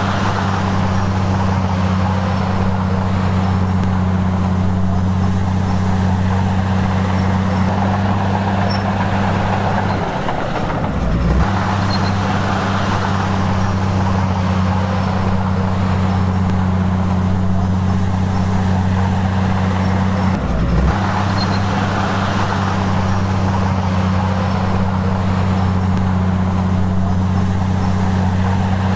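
Komatsu bulldozer's diesel engine running at a steady speed with a constant low hum, broken briefly about ten seconds in and again about twenty seconds in.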